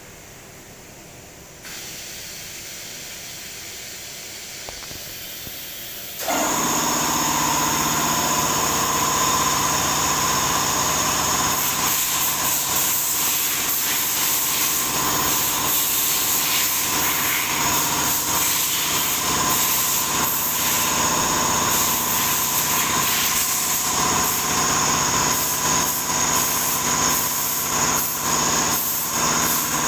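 CNC milling machine starting up and running: a hiss comes in about two seconds in, then about six seconds in the machine steps up to a loud, steady whine made of several tones and keeps running evenly.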